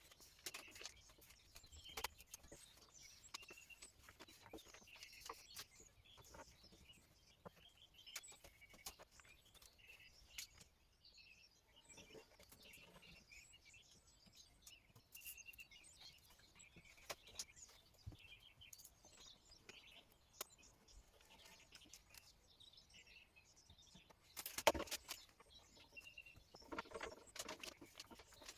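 Faint chirping of birds, with scattered small clicks and rustles throughout and a louder rustle or knock about three-quarters of the way through.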